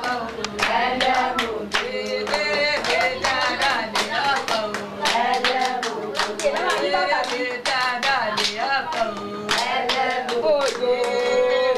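A high voice singing a song with hand clapping in time, the claps sharp and frequent throughout.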